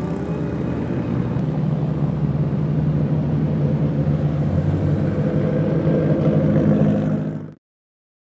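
Engines of several drift cars running together at low, steady revs, getting a little louder, then cutting off abruptly near the end.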